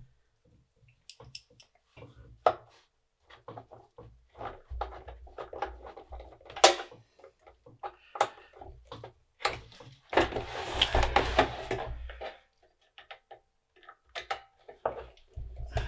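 Clicks, taps and scrapes from handling the metal case of a floppy drive unit and its screws, with one sharp click a little past the middle and a longer rustling scrape about ten seconds in.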